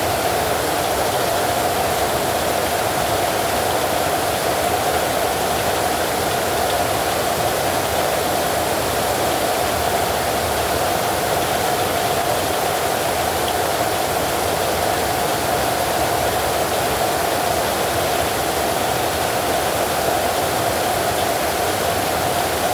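Heavy rain falling steadily, an even hiss with no thunder in it.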